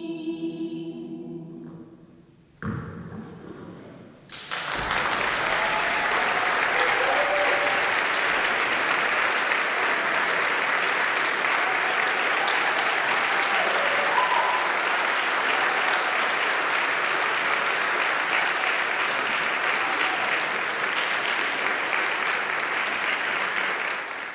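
A mixed choir's final chord dying away in a reverberant church, a single thump about three seconds in, then the audience applauding with a few voices calling out, cut off abruptly near the end.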